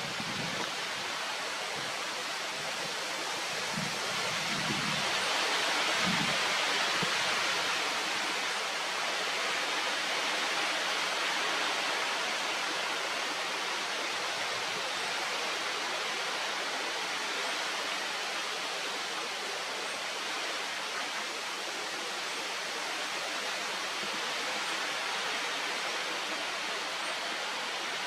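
Steady, even rushing noise like running water, a little louder about six seconds in, with a few faint low knocks in the first several seconds.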